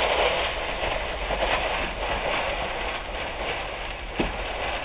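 Dry puffed rice cereal (Rice Krispies) pouring from the box into a bowl: a steady, grainy rattle and rustle, with a single sharp knock near the end.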